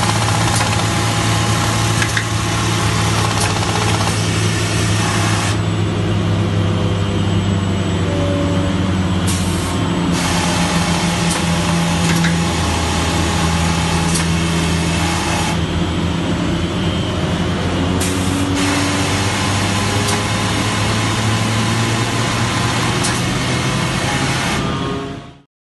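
Montex automatic industrial sewing unit running while it stitches knitted mesh filter fabric: a loud, steady mechanical hum with occasional sharp clicks. A higher hiss drops away twice for a few seconds, and the sound cuts off abruptly near the end.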